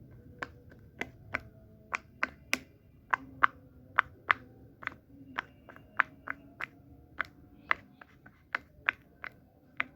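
A fidget toy clicking, about twenty sharp clicks at roughly two a second, unevenly spaced.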